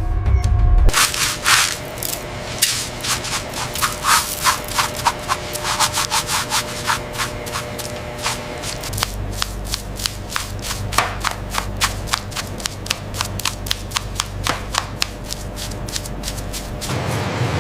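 Rapid, irregular rubbing strokes, about three a second, by hand over a low steady hum, heaviest in the first few seconds; near the end the strokes stop and a steady hiss sets in.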